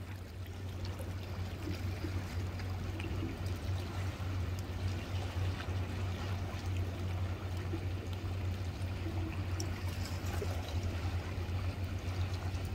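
Seawater washing and lapping against the rocks of a breakwater, a steady sound of moving water with a steady low rumble underneath.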